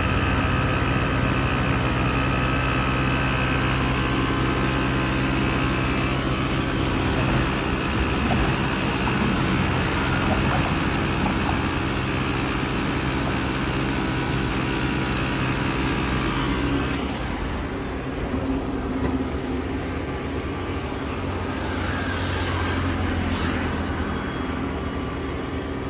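Portable 12-volt car tyre inflator running steadily, pumping a tyre up from about 20 to 30 psi; the sound drops and changes about 17 seconds in.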